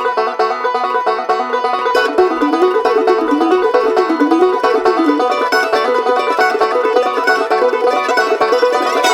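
Bluegrass band music: an instrumental with a quick run of picked string notes and a melody moving up and down.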